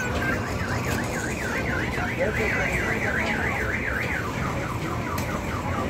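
Electronic alarm siren cycling through its tones: a fast warbling tone, about four to five wobbles a second, for about four seconds, then a switch to a rapid run of short falling chirps.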